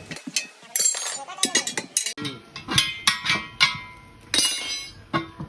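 Metal tools striking and clinking against a steel wheel rim, a string of sharp clanks with a bright metallic ring, as a tyre is worked on or off the rim by hand.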